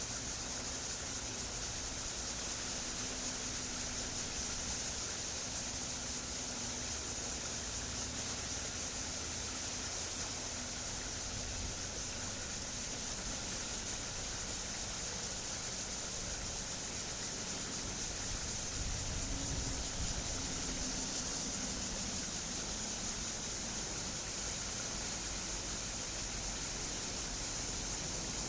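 Chorus of cicadas: a steady, high-pitched buzzing hiss that does not let up, with a low rumble underneath.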